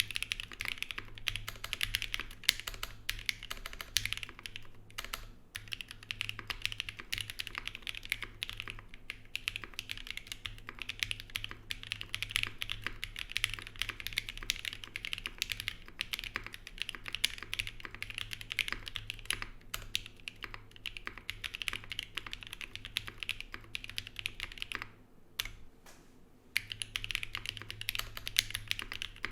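Fast continuous typing on a gasket-mounted Zoom75 SE mechanical keyboard with lubed KTT Strawberry V2 linear switches, a carbon fibre plate, no foam and GMK keycaps: a steady stream of key clacks with a brief pause about 25 seconds in.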